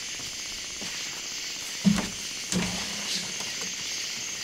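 Wooden workshop door creaking on its hinges, once briefly about two seconds in and again for most of a second just after, over a steady high hiss.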